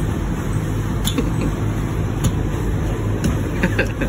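A dive boat's engine running with a steady low drone, with a few light clicks and knocks on deck.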